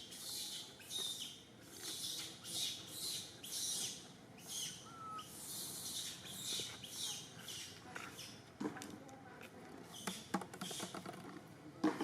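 A small animal's short high squeaks, repeated about twice a second, with a few sharp clicks near the end.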